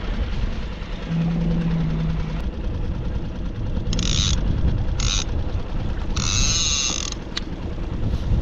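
Three short bursts of mechanical creaking, about four, five and six seconds in, the last the longest, over the steady low rumble of a skiff's motor while trolling.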